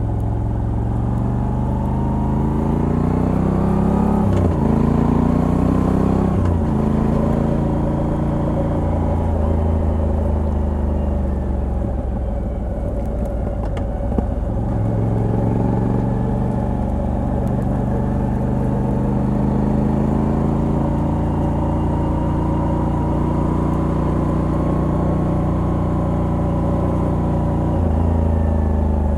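Moto Guzzi V85TT's air-cooled 90° V-twin, stock exhaust with a Mistral decat pipe, running under load on the road. Its pitch climbs and drops back at gear changes about four and six and a half seconds in. It eases off briefly midway, then pulls with a long slow rise and changes gear again near the end.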